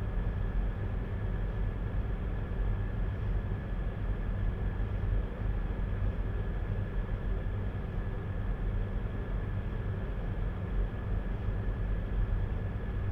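Steady background machine hum with a thin, high, steady whine over it, unchanging throughout.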